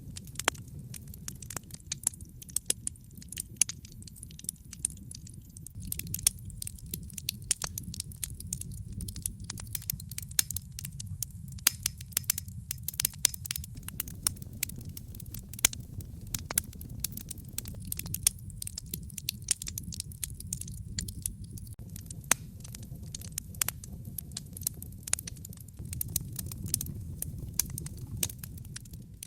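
Wood fire in a fireplace crackling, with many irregular sharp pops and snaps over a steady low rumble of the flames.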